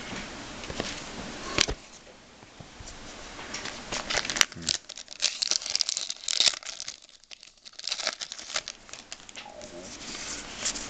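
Trading-card pack wrapper crinkling and tearing as a pack is opened by hand, a busy run of crackles with two sharp clicks in the first half.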